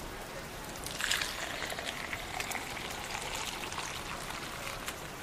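Steady rain with single drops ticking through it. About a second in, a louder watery hiss comes in sharply and slowly fades away near the end.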